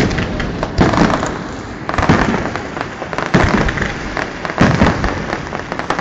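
A fireworks display: aerial shells bursting with sharp bangs, one every second or so, over continuous crackling from the burning stars.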